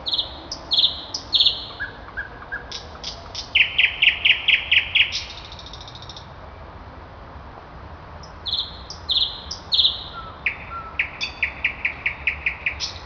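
A songbird singing two songs a few seconds apart, each opening with a few clear high notes and ending in a fast run of repeated notes.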